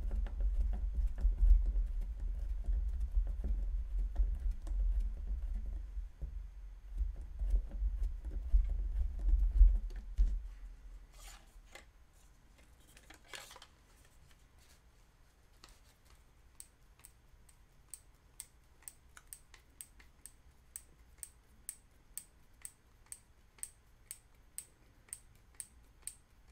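Screwdriver driving M4 screws into a 3D-printed plastic grip: knocks and a low rumble of handling against the table for about the first ten seconds, then a couple of short scrapes. After that comes an even run of light, quick ticks, about two or three a second.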